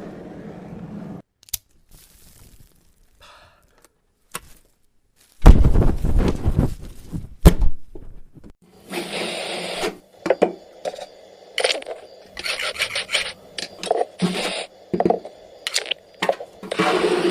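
Cartoon sound effects with no dialogue: after a near-silent stretch, a loud heavy thud with a low rumble, a sharp crack, then a quick run of knocks, clatters and scrapes.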